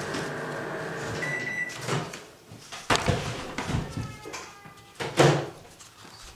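A steady machine hum with a short high beep about a second in, which stops about two seconds in; then a few sharp knocks and clatter with a brief squeak, the loudest knock about five seconds in.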